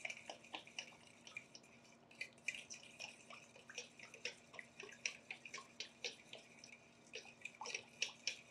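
Fork stirring thick barbecue sauce in a stainless steel mixing bowl: faint, irregular wet clicks and ticks of the tines against the metal as clumps of tomato paste are worked in.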